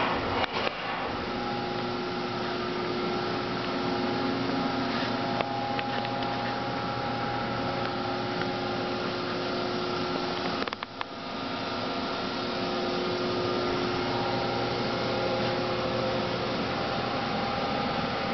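A 2002 Haas VF-11 CNC vertical machining center running: a steady mechanical hum with several held tones over a noise haze, which drops out briefly about eleven seconds in.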